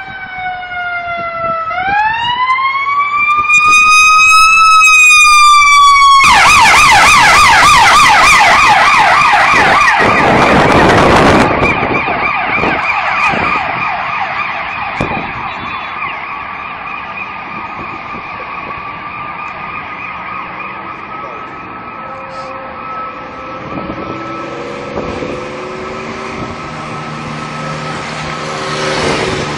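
Emergency vehicle siren wailing, rising and falling slowly, then switching to a fast yelp that is loudest about six to eleven seconds in as it passes. It then fades to a steady, fainter tone. A heavy vehicle engine is heard in the last few seconds.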